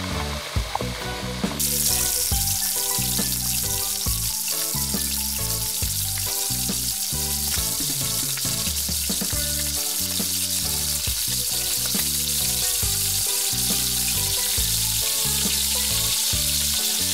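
Gourami fish deep-frying in hot oil: a steady sizzle that starts abruptly about a second and a half in. Background music with stepped low notes plays underneath.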